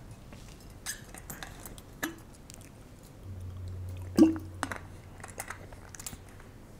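A man drinking from a plastic water bottle: scattered light clicks from handling the bottle and its cap, and swallowing, with one louder gulp about four seconds in.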